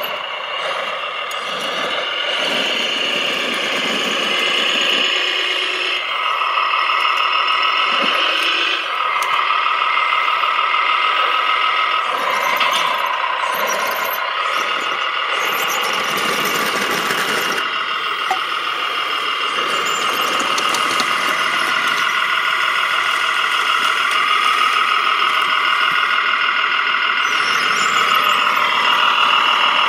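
Radio-controlled Liebherr tracked loader working, its electric drive and hydraulics giving a loud, steady high whine that steps up and down in pitch as it moves and works the bucket. A short rush of noise comes just past the middle.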